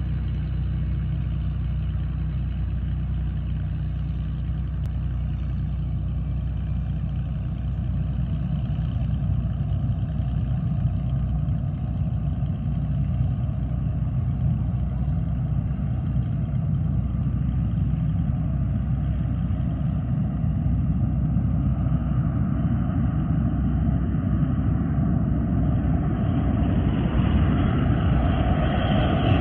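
Business jet's rear-mounted twin jet engines on a takeoff run, a steady low hum that grows louder and brighter over the last ten seconds as the jet approaches and lifts off.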